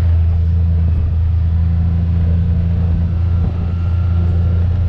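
Vehicle engine running steadily, a continuous low, even drone.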